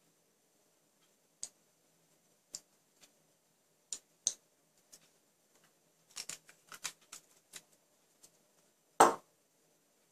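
Light clicks and taps of small objects being handled, with a quick run of them about six to seven seconds in and a louder knock near the end.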